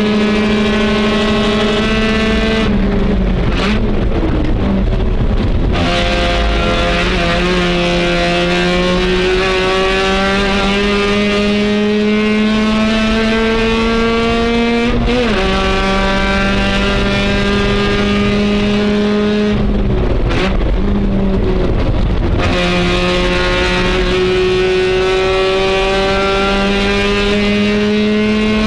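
Race car engine heard from inside the cockpit under hard acceleration, its pitch climbing steadily through each gear. It comes off the throttle for a few seconds near the start and again about two-thirds in, and the pitch drops suddenly at an upshift about halfway through, then climbs again.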